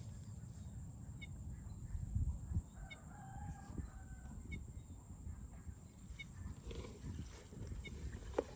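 A rooster crowing once, about three seconds in, over a steady low rumble.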